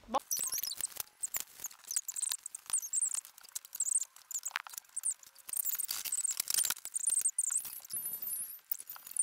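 Interlocking foam play-mat tiles being handled and fitted together: many short, high squeaks of foam rubbing on foam, with light clicks and knocks throughout.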